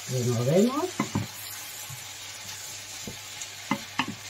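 Chopped onion, peppers and carrot sizzling in olive oil in a frying pan while being stirred with a wooden spoon, which knocks against the pan a few times.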